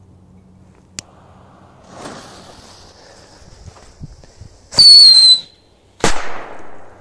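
Small whistling firecracker: its fuse hisses, then it gives a short, very loud shrill whistle that falls slightly in pitch, and under a second later ends in a sharp bang with a brief rumbling tail.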